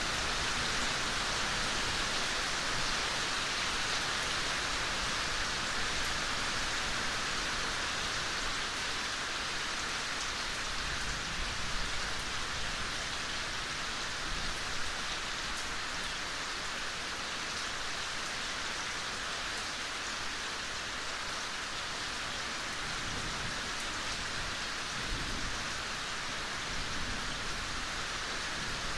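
Soft, steady rain falling, an even hiss with faint scattered drop ticks.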